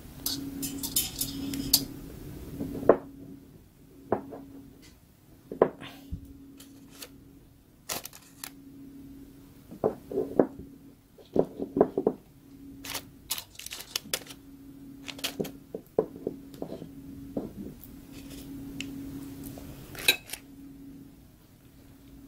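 Hands arranging cheese slices on a sandwich in a parchment-lined air fryer basket: scattered light taps, clicks and paper rustles against the basket, over a faint hum that keeps breaking off.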